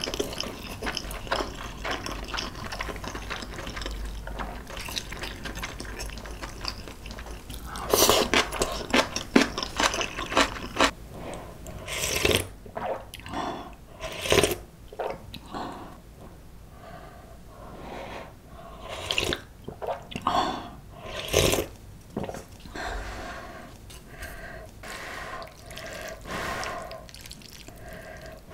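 Close-miked eating sounds: wet, clicky chewing of a steamed king dumpling, then a series of louder slurps of clam noodle-soup broth from a spoon, with quieter chewing between.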